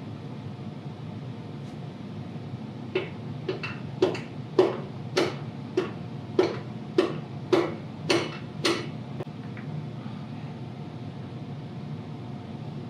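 A piston being tapped down through a ring compressor into a big-block cylinder: about a dozen sharp knocks, a bit under two a second, that start a few seconds in and stop near the middle of the stretch. The cylinder wall had not been oiled first, so the rings go in stiffly. A steady low hum runs underneath.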